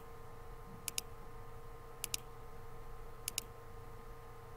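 Computer mouse clicks: three of them about a second apart, each a quick double tick, over a faint steady hum.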